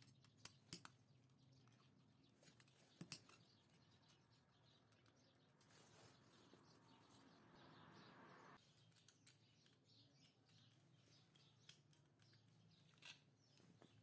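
Near silence with a few faint clicks and taps from a screwdriver and wires being worked into the terminals of a rotary selector switch. A soft hiss swells in the middle and cuts off suddenly.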